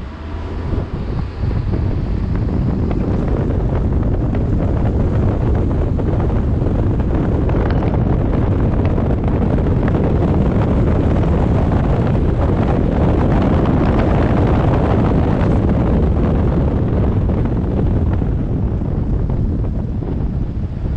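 Car driving, heard through a GoPro's microphone: wind buffeting the microphone over a steady rumble of road and tyre noise. It grows louder over the first two seconds and eases a little near the end.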